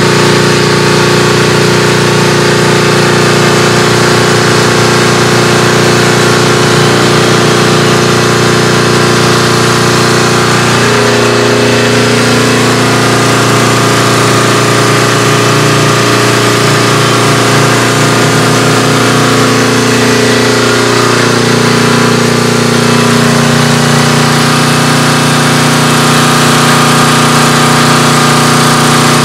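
An engine running steadily, with a shift in its pitch about eleven seconds in and again about twenty-one seconds in.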